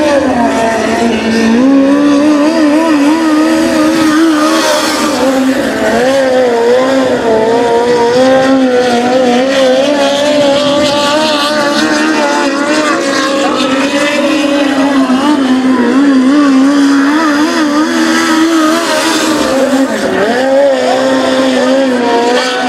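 Esslinger four-cylinder engine of a midget race car running at speed, its pitch rising and dipping over and over as the driver goes on and off the throttle through the turns.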